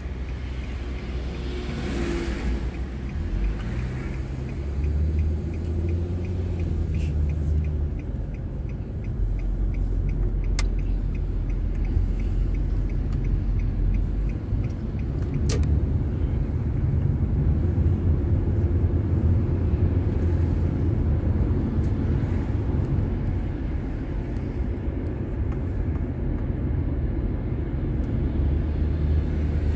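A car driving on city streets, heard from inside the car: a steady low engine and road rumble, with the engine note rising a few seconds in as the car picks up speed. There is a run of light, evenly spaced ticks early on and a couple of sharp clicks later.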